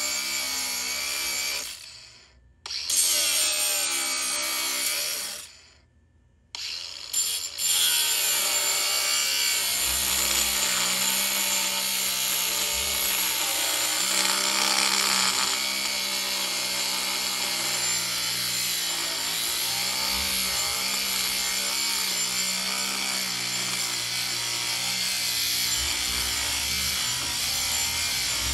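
A small electric power tool's motor running under load, its pitch wavering as it bears on the work. It stops and starts again twice in the first several seconds, then runs on steadily.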